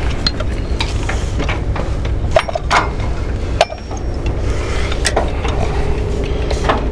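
A diesel engine running steadily under a series of sharp metallic clanks and clinks from recovery hooks and rigging being handled.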